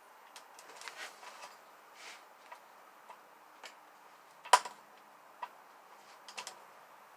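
Small screws and a hand screwdriver clicking and tapping against a plastic battery box as screws are fitted, in scattered light ticks, with one sharp, louder click about four and a half seconds in.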